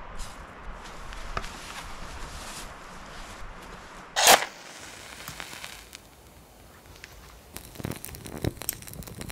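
A single sharp scrape about four seconds in, then dry pine needles crackling with irregular clicks as a small fire catches near the end.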